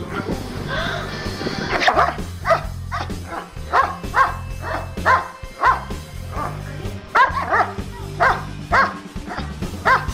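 A dog barking in short repeated barks, about two a second, with a brief pause past the middle: warning barks from a dog guarding a sleeping person. Background music with a low bass line plays under it.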